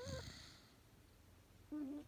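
Xoloitzcuintle dog snoring in its sleep: the end of one snore trails off in a short squeaky glide, a quieter pause follows, and a short pitched squeak comes near the end as the next snore begins.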